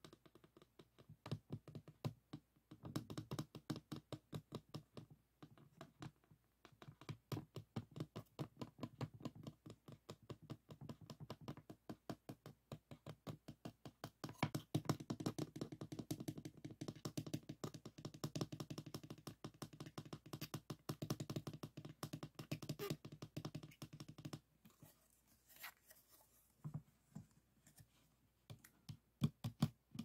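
Fingertips and nails tapping rapidly on a stiff white board, a quick run of light taps and scratches. About 25 seconds in it thins to a few scattered taps, then picks up again near the end.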